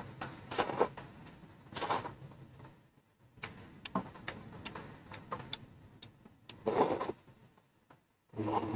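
Close-up eating sounds of bún riêu crab noodle soup: wet chewing and slurping in short bursts about four times, with small clicks throughout.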